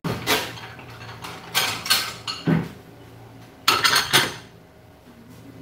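Kitchenware being handled: dishes and containers clinking and knocking against each other and the counter in several short clatters, the busiest near the start and around four seconds in.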